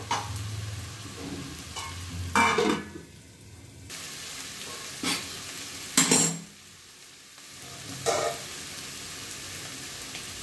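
Steel spatula scraping and knocking against a kadai about five times while spice-coated mushrooms and potatoes are stir-fried dry, with a steady sizzle of the frying masala between strokes.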